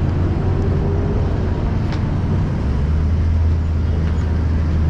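Road traffic on a busy city avenue: cars and buses running past, with a steady low engine rumble.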